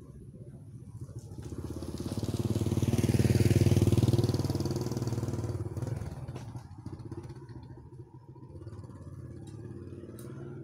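A motorbike passing close by: its engine grows louder to a peak a few seconds in, then fades away.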